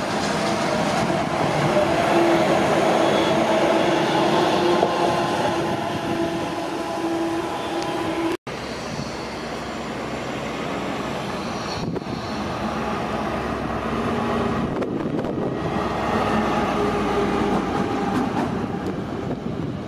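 Two Hector Rail electric locomotives coupled in multiple run through the station, with a steady whine over the noise of wheels on rail. About eight seconds in the sound cuts abruptly. Then a Vossloh G 1000 BB diesel-hydraulic locomotive comes closer and passes, its engine and wheel noise getting louder towards the end.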